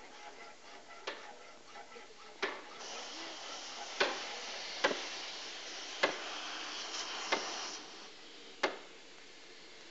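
Sharp ticks about once a second. A hiss sets in about three seconds in and stops near eight seconds.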